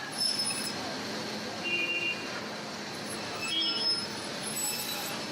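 Thompson 400 meat band saw running steadily while cutting lamb portions, with a continuous hum and short high-pitched tones about four times.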